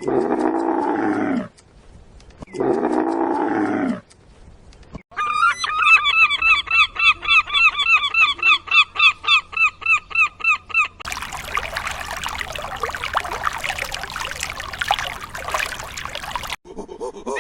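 A run of animal calls. First come two long, low calls; then, about five seconds in, domestic geese honk in a fast, even series. About eleven seconds in, a flock's dense, noisy chatter takes over.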